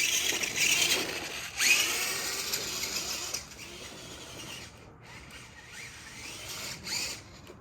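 Electric motor and gears of a radio-controlled monster truck whining, rising and falling in pitch as it revs in short bursts. The loudest rev comes about a second and a half in.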